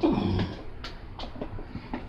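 A loud snore, about half a second long and falling in pitch, right at the start, followed by faint scattered clicks.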